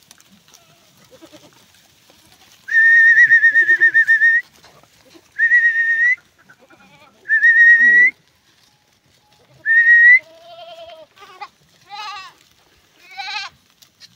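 A herder whistling four long, warbling calls on one high pitch, each lifting at its end. Near the end, Gaddi goats bleat in short, wavering cries.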